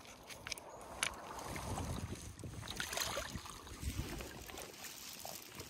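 Seawater washing among shoreline rocks, the noise swelling and easing over a second or two, with a few faint clicks in the first second.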